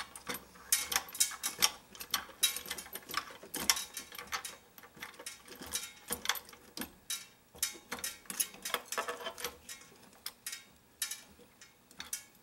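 A screw being unscrewed and backed out of the wooden seat board under a grandfather clock movement: irregular small clicks and scrapes, a few each second.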